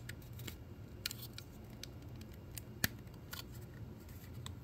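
Light plastic clicks and taps as a plastic fan duct is handled and pressed onto a plastic cooling-fan housing, with one sharper click a little before three seconds in.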